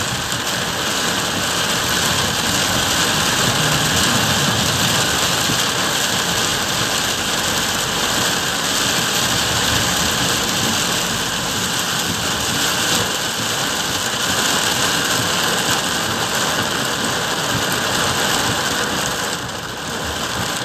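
Torrential rain drumming steadily on a car's roof and windshield, heard from inside the car as it drives through the downpour.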